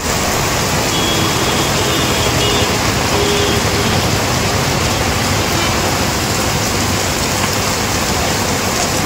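Heavy rain pouring down onto a waterlogged road: a steady, even hiss of the downpour.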